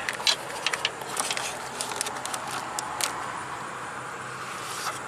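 Hands working along a car's engine-bay wiring harness, scattered small clicks and crackles of plastic loom and clips in the first few seconds, then mostly a steady background hiss.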